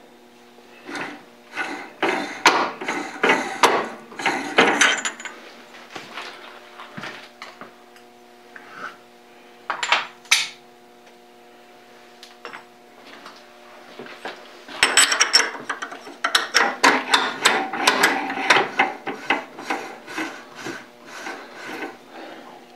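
Metal clinking and rattling of a lathe collet being changed in the spindle nose of a South Bend lathe, in three bursts of clatter, over a faint steady hum.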